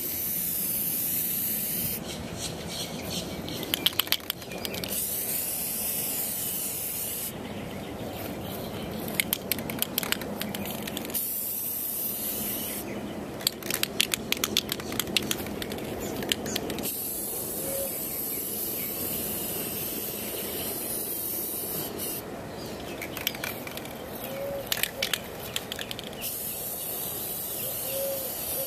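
Aerosol can of clear coat hissing in repeated sprays of about two seconds each as it is sprayed onto a car's body panel. The sprays alternate with stretches of rapid sharp clicking.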